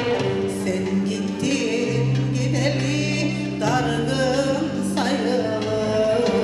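A woman singing a song into a microphone with vibrato, accompanied live by violins and an ensemble holding long low notes underneath.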